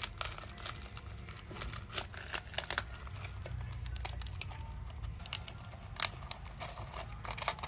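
Irregular crisp crackling and tearing sounds of food being prepared, with one sharp crack about six seconds in.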